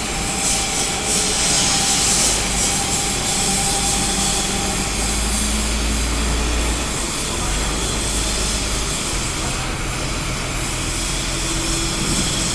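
Engine of the machinery loading the wood chipper into a container, running steadily with a deep rumble that swells for a few seconds in the middle.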